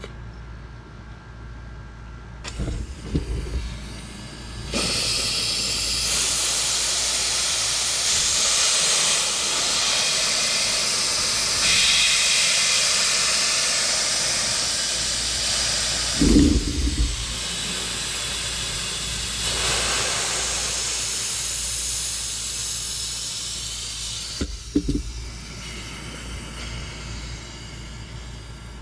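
Compressed air hissing out of the bleed valve of a 4000 psi (300 bar) electric PCP air compressor as the valve knob is opened, bleeding off the pressure. The hiss starts about two seconds in, is loudest through the middle, eases off after about sixteen seconds and fades near the end, with a few short knocks as the valve is handled.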